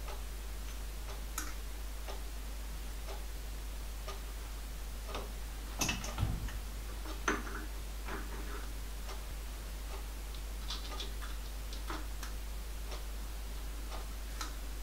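Small scattered clicks and taps of a brass collar, piston ring and steel mandrel being handled on a lathe by hand, with a short cluster of louder metal knocks about six to seven seconds in, as the collar goes onto the mandrel. A steady low hum runs underneath.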